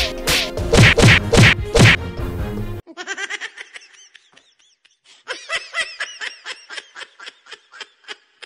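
Slapstick sound effects over background music: a quick run of loud whack hits that cuts off suddenly about three seconds in, followed by a fast, chattering string of short pitched pulses, about four or five a second, with a brief lull in the middle.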